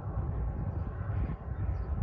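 Diesel-hauled freight train approaching in the distance: an uneven low rumble.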